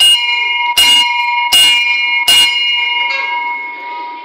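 A bell struck four times, about three quarters of a second apart, each strike ringing on with clear tones that fade slowly after the last.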